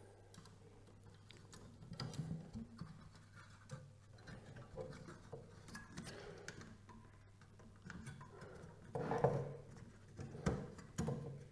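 Faint handling of a tower CPU cooler's fan: the plastic fan frame and metal wire clips scraping and clicking against the aluminium heatsink fins as the clip is fitted, with louder clicks about nine seconds in and again near the end as it catches and locks into place.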